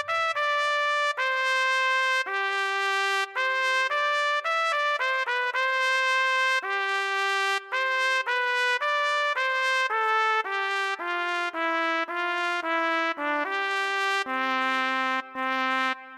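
Solo trumpet playing a slow melody, one note at a time with no accompaniment. Near the end it settles on a long, low held note.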